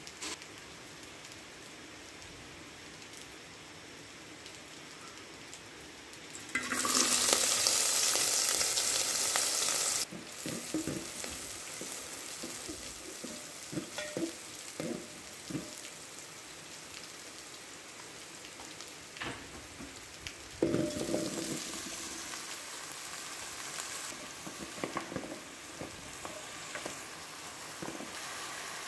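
Chopped spring onions frying in an aluminium pot on a gas burner: a loud sizzle for a few seconds, then a quieter steady sizzle with a spoon clicking and scraping against the pot. About two-thirds through, a second loud burst of sizzling as diced pumpkin goes in, settling back to a steady fry.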